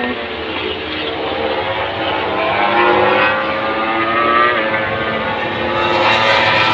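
MotoGP racing motorcycles running at high revs on the circuit, their engine notes rising as they accelerate. The sound gets louder about halfway through and again near the end.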